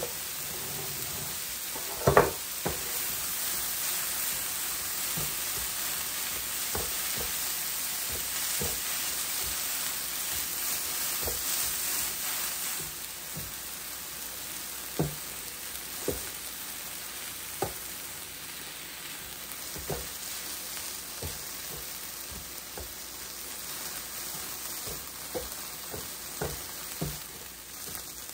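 Sliced bell peppers and onions sizzling steadily on a hot electric griddle set to 400°F, a little louder in the first half. Scattered short knocks and scrapes of a utensil stirring them on the griddle plate, the loudest about two seconds in.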